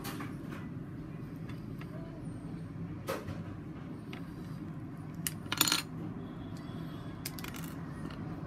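Plastic Lego bricks clicking and tapping as they are handled and pressed onto the model. There are a few separate clicks, with the loudest short cluster a little past the middle, over a steady low hum.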